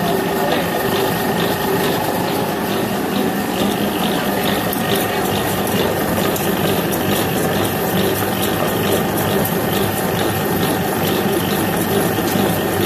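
Electric motor-driven dough beater running steadily, its paddle churning cooked rice-flour dough for bún in a metal bowl, with a fast, even clatter.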